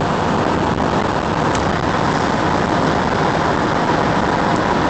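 Steady road noise inside a car's cabin while cruising at highway speed, about 120 km/h.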